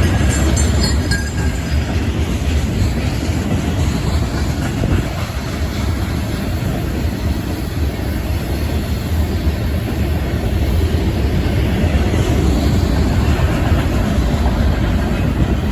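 Union Pacific freight train's cars rolling steadily past, wheels running on the rails, with wind buffeting the microphone as a low rumble.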